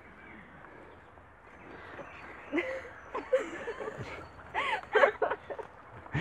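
Quiet, indistinct voices of a small group murmuring and half-answering a question, getting louder in the second half, over a faint open-air hiss.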